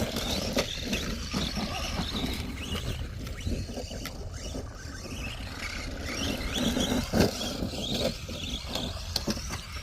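ARRMA Vorteks RC truck driving over dirt: its electric motor gives short rising whines as the throttle is blipped, over a steady scrabble of tires on loose ground. There is a sharp knock about half a second in and a louder one about seven seconds in, as the truck hits clods or lands.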